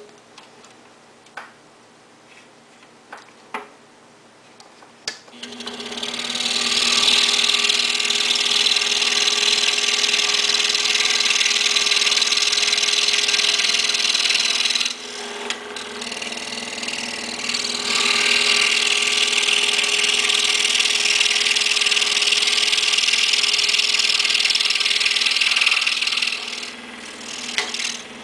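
A few light clicks, then an Excalibur scroll saw starts about five seconds in. Its blade cuts through thin wood with a steady hiss over the machine's hum. The cutting eases for a few seconds in the middle and again near the end while the saw keeps running.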